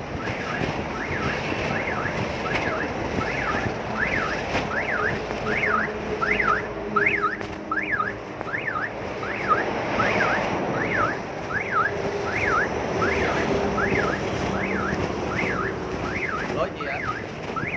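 An electronic siren-like alarm tone sweeping rapidly up and down in pitch, about twice a second, over a steady background rumble of traffic and wind.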